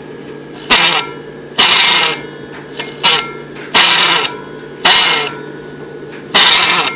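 A 6-volt Delco-Remy car generator being turned by hand, squealing and creaking in six loud, uneven bursts, each half a second to a second long, that sound like a goat dying. The owner takes the noise for a worn commutator-end (rear) bushing.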